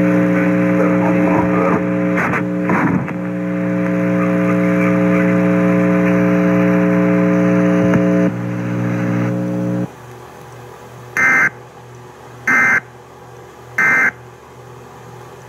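Radio reception with hiss and a steady buzzing hum for about the first ten seconds, then a quieter stretch broken by three short, loud data bursts about 1.3 s apart: the EAS end-of-message code that closes the Amber Alert broadcast.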